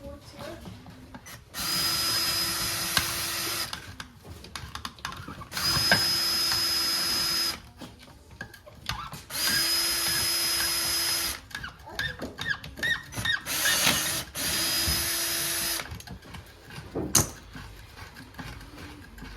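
Power drill-driver running in four spells of about two seconds each, backing out screws, with clicks and rattles of handling between the spells.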